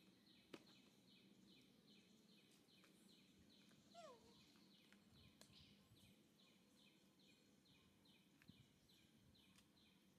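Near silence, with a faint insect chirping steadily in even high pulses, about three a second. A single short falling squeak comes about four seconds in.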